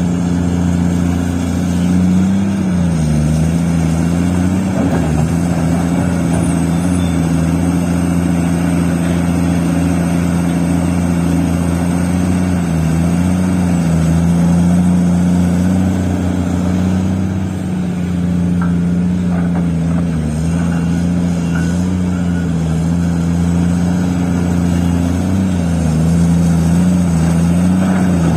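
Heavy diesel engine of large mining equipment running steadily, its pitch dipping and recovering slightly now and then as it takes load.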